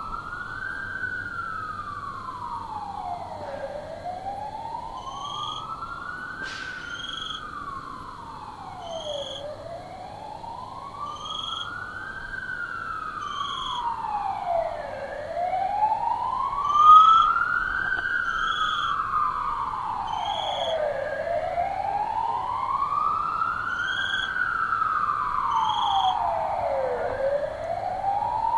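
Police siren on a slow wail, its pitch rising and falling in long sweeps, about one full cycle every six seconds.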